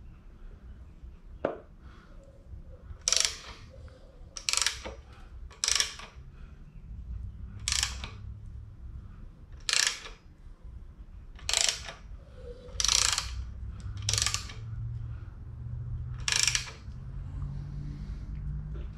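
Ratchet wrench worked in short strokes: about ten brief bursts of clicking, a second or two apart, as the engine's crankshaft is turned over by hand to check piston-to-valve clearance with clay. A low steady hum joins about a third of the way in.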